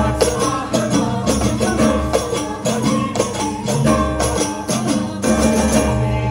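Balinese gong kebyar gamelan playing: bronze metallophones and gongs ring over a low steady drone, cut by frequent sharp metallic cymbal clashes.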